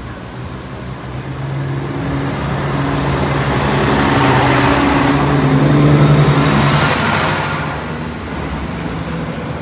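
Class 170 Turbostar diesel multiple unit running slowly over a level crossing. Its underfloor diesel engines give a steady hum, mixed with the rolling of wheels on rail. The sound grows louder to a peak about six seconds in as the carriages pass, then fades.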